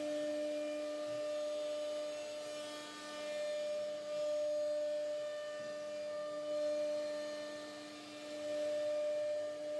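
CNC router spindle running and carving a wooden door panel: a steady whine with a faint cutting hiss, its level slowly swelling and fading as the bit works.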